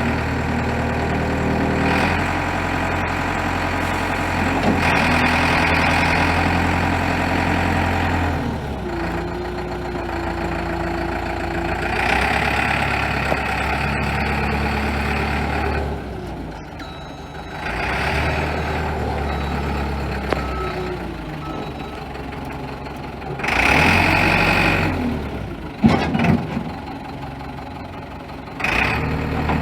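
New Holland 555E backhoe loader's diesel engine running, its speed and loudness rising and falling several times as the machine is worked.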